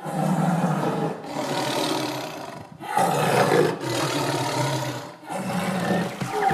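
Tiger roaring, several long roars one after another with short breaks between them.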